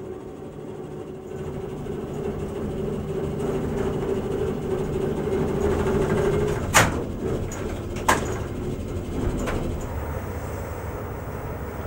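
Locomotive turntable's drive running with a steady hum as the bridge turns, the hum stopping after about six and a half seconds. Two sharp knocks follow about a second apart, with a fainter one shortly after, over a low rumble.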